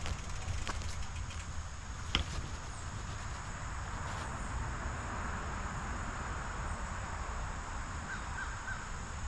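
Wind rushing over a bike-mounted action camera and bicycle tyres rolling along a paved trail, with a sharp knock about two seconds in. A few faint short bird calls come near the end.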